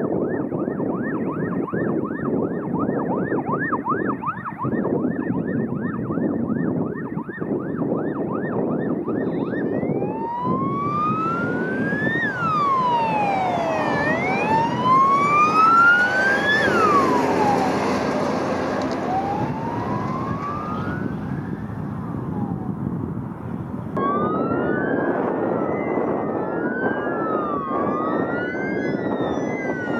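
Sirens of responding bushfire trucks: a fast yelp for the first ten seconds or so, then a slow rising and falling wail over truck engine and tyre noise. Near the end several sirens wail at once, out of step with each other.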